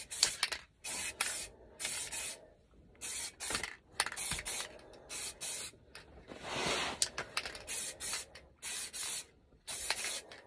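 Aerosol can of matte black spray paint hissing in many short bursts with gaps between them, about one or two a second, with one longer spray about two-thirds of the way through.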